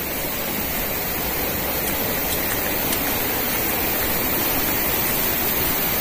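Steady, even rush of flowing river water.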